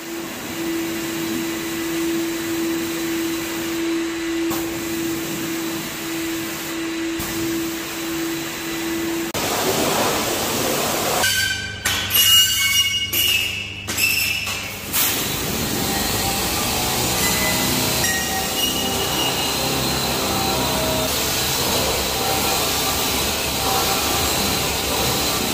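Pressure washer running with a steady motor hum and the hiss of the water spray. About nine seconds in the sound changes, with several abrupt cuts, and then background music plays.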